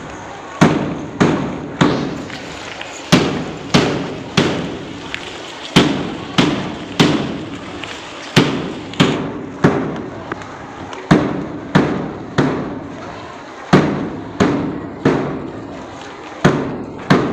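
A drum beaten in a steady marching rhythm, about one and a half strokes a second, each stroke sharp with a short ringing tail, keeping time for a march past.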